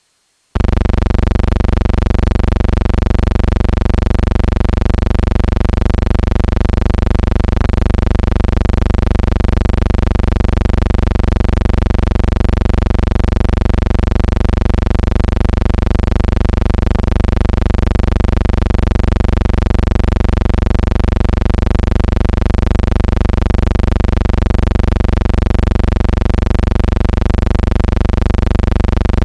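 Loud, unchanging electrical buzz: a deep hum with many overtones that switches on abruptly about half a second in and holds one pitch throughout.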